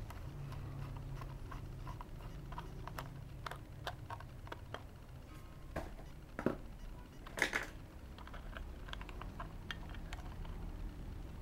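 Small clicks and ticks of a screwdriver backing a screw out of a plastic multimeter case, then the plastic battery cover being handled and pulled off, with two louder clacks about six and a half and seven and a half seconds in.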